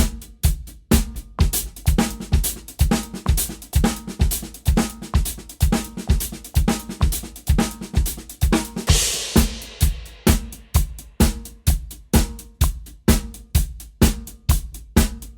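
Drum kit playing paradiddle patterns as steady 16th notes, with sticking across snare and hi-hat over a regular bass drum pulse. A cymbal crash rings out about nine seconds in.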